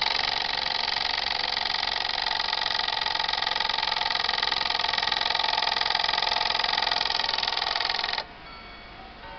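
Five Rams mechanical alarm clock ringing its alarm: the hammer strikes the bell rapidly in a continuous, even ring that cuts off suddenly about eight seconds in, leaving a faint ringing.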